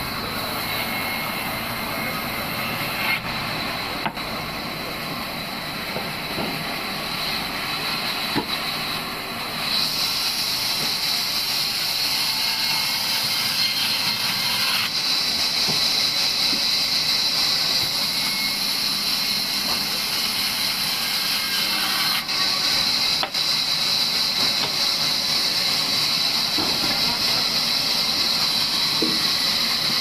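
Large vertical band saw running with its blade cutting through a log, a steady hissing whine. It grows louder and brighter about ten seconds in and stays that way.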